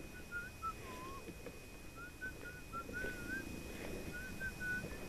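Faint short whistled notes in loose phrases, wavering and gliding in pitch, over a thin steady high tone.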